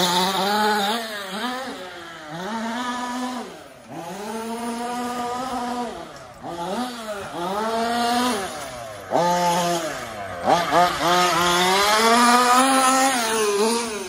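Radio-controlled 4WD car's motor revving hard and easing off again and again as it laps a dirt track, its buzzing pitch rising and falling about five times.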